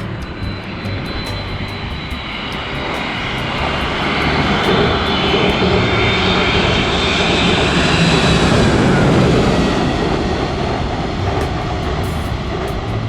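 Jet airliner passing low overhead: a loud engine rush and whine that builds, peaks about two-thirds of the way through, then starts to fade.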